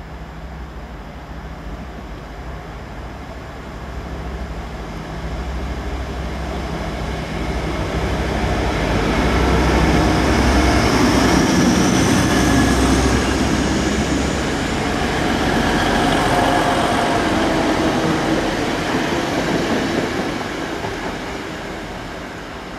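Class 180 Adelante diesel multiple unit running through a station under its own diesel power. The engines and wheels grow louder as it approaches, stay loudest for about ten seconds as it passes, then fade.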